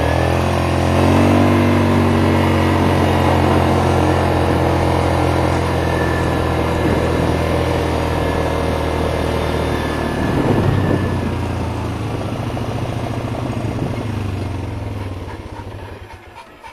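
A motor vehicle's engine speeding up, then running at a steady pitch, with a brief change about ten seconds in, and fading away near the end.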